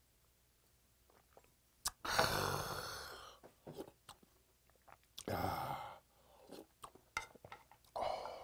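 A man downs a shot of soju and lets out a loud breathy exhale about two seconds in. He then slurps hot soup broth from a spoon, with a second breathy burst later and near the end, chewing, and faint clicks of the spoon against the metal pot in between.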